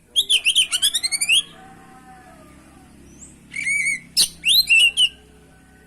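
Oriental magpie-robin singing: a rapid run of about ten quick sweeping high notes, then a pause, then two bursts of varied whistled phrases near the end.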